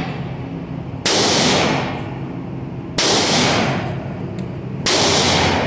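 Three gunshots, about two seconds apart, each trailing off in a long echo.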